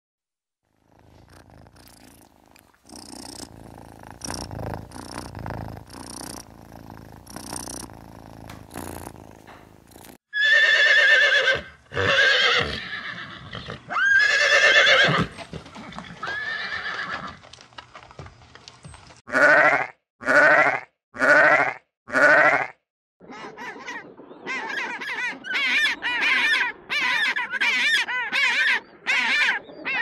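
A few seconds of low rustling, then a horse neighing, loud calls that rise and fall in pitch. Near the end, an African penguin brays in short calls, first four about a second apart, then a fast run of about two pulses a second.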